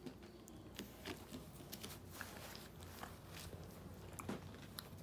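A toddler chewing dates, with small scattered wet mouth clicks.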